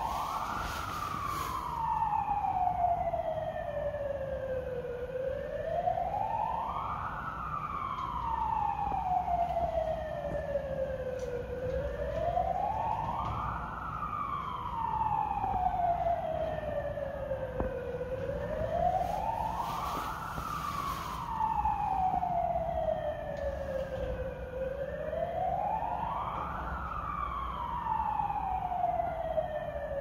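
Wailing alarm siren of a school's fire and earthquake drill. A single tone climbs over about two seconds and sinks back over about four, repeating steadily about every six and a half seconds.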